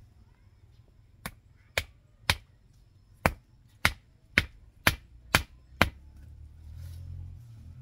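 Nine sharp strikes of a hand tool, about two a second, with a short pause after the third.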